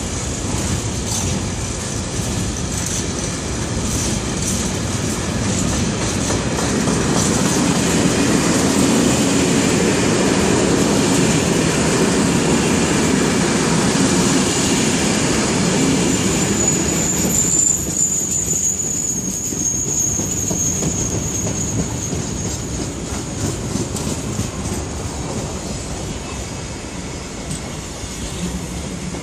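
Freight wagons of an engineers' train rolling past at speed: a steady rumble of steel wheels on rail with a running clatter of wheels over the track. About 17 seconds in, a high-pitched wheel squeal comes in for several seconds, dropping slightly in pitch.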